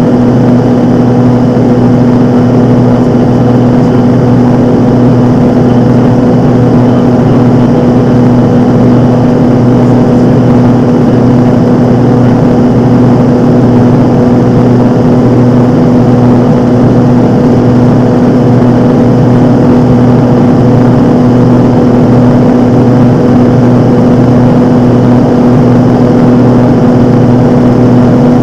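Single-engine light aircraft's piston engine and propeller droning steadily inside the cockpit, a loud, even hum with a strong low tone that does not change.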